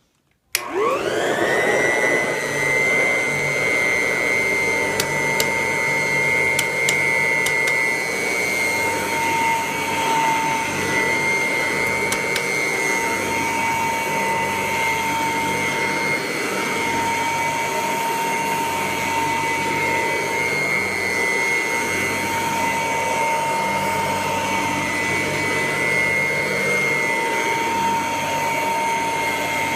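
Kirby 508 upright vacuum cleaner switched on about half a second in, its motor spinning up with a quickly rising whine, then running steadily with a high whine and rushing air. A few faint ticks come a few seconds after start-up.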